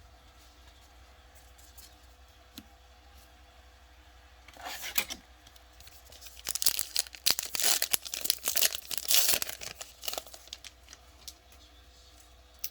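A trading card pack's wrapper being torn open and crinkled: a short crackle about four and a half seconds in, then dense crackling tearing for about four seconds.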